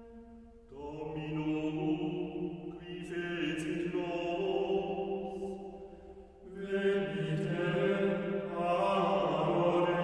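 Background music of a low voice chanting long held notes, breaking off briefly just under a second in and again around six and a half seconds in.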